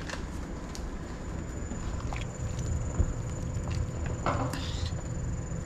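A pot of soup being stirred with a wooden spoon and a wire ladle: a few light knocks and scrapes over a steady low hum and a faint steady whine.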